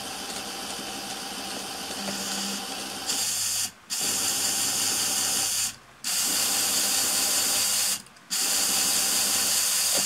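Small fischertechnik electric motors and their plastic drive trains running with a steady whir. About three seconds in the sound grows louder, then cuts out briefly three times, roughly every two seconds: the motor is being interrupted, which the builder puts down to infrared interference between his two remote controls.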